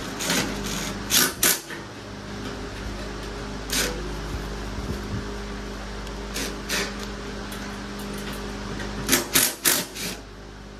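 Scattered sharp metal knocks and clatters of brackets, bolts and tools being handled while fitting parts to a dirt-bike frame, with a quick run of knocks near the end. Under them runs the steady hum of an electric fan.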